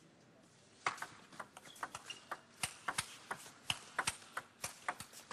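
Table tennis rally: a celluloid ball clicking off the rackets and the table in quick alternation, starting with the serve about a second in, several clicks a second.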